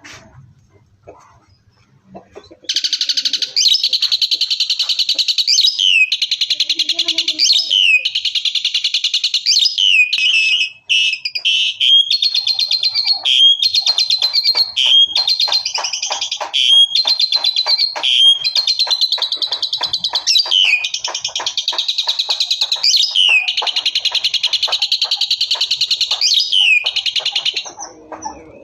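Asian pied starling (jalak suren) in full loud 'tembakan' song. The song starts about three seconds in and runs almost unbroken for some 25 seconds: a rapid, high pulsed chatter with a falling sweep every couple of seconds. It stops shortly before the end.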